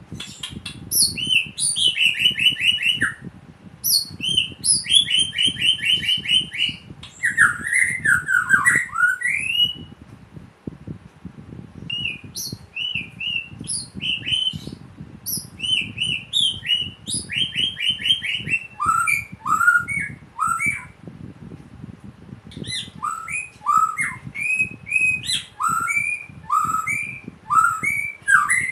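Caged white-rumped shama singing a fast, varied song of repeated chirps and quick trills, sung in the style of a samyong, with short pauses about ten and twenty-two seconds in.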